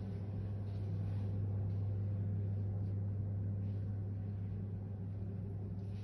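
A steady low hum that holds the same pitch and level throughout, with a few faint light ticks over it.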